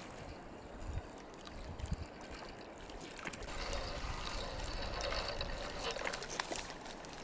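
Water splashing and trickling as a small hooked fish is drawn across the surface toward the bank on a float rod, busiest for a few seconds in the middle.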